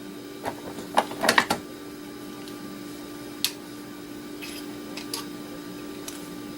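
Small metal parts from a dismantled laptop hard drive being handled and set down: a few light clicks and clinks, bunched about a second in, then single ones, over a steady low hum.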